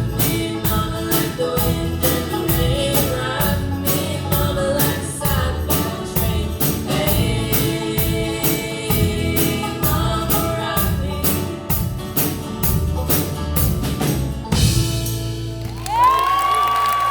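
Live band with a lead singer playing the end of a country-folk song over a steady beat, finishing on a held final chord about fourteen and a half seconds in. Near the end a high whoop rises and falls.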